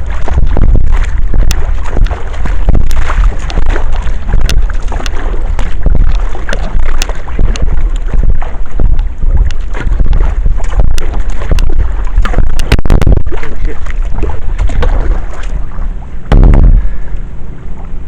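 Kayak being paddled, with the paddle blades splashing and clacking in rhythm, under heavy wind buffeting on the microphone; a louder low thump near the end.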